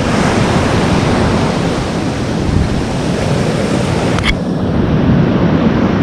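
Surf breaking on the beach and wind buffeting the microphone, a steady loud rush of noise, with a single brief click about four seconds in.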